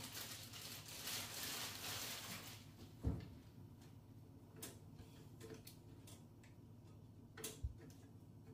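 A plastic bread bag rustling, then a few light clicks and two soft knocks as bread is handled at the toaster.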